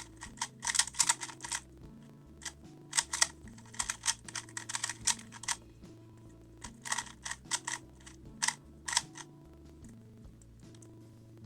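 Plastic 2x2x2 speed cube being turned quickly by hand, a rapid clatter of clicking turns in several bursts that stop about nine seconds in.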